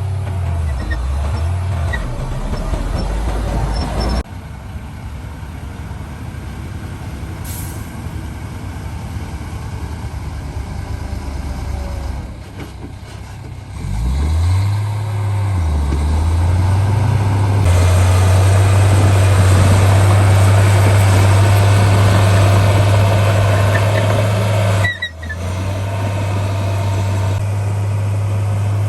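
Heavy diesel engines of dump trucks and a bulldozer working, a loud low drone that drops and climbs in pitch as the machines are throttled, with a hiss of noise over it. The sound breaks off abruptly twice, about four seconds in and near the end.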